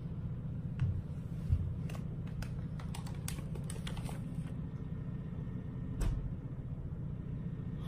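Light clicks and crinkles of a plastic snack wrapper being handled as a mango mochi is taken out, with a couple of soft thumps, over a steady low hum.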